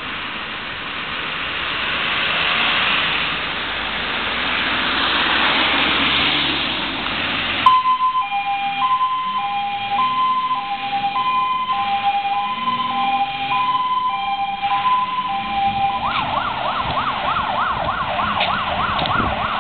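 Fire engine siren on a MAN LE 18.280 medium rescue-firefighting truck, switching on suddenly about eight seconds in with a two-tone hi-lo pattern that alternates about once a second, as the truck turns out on an emergency call. About sixteen seconds in it changes to a fast wail rising and falling about three times a second. Before the siren there is only a steady hiss of street noise.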